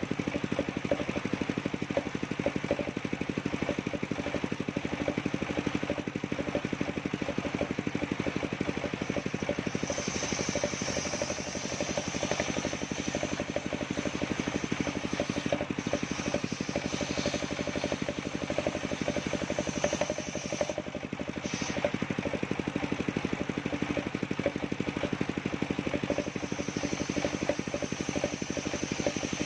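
Engine of a portable circular-saw sawmill running steadily with a rapid, even firing beat.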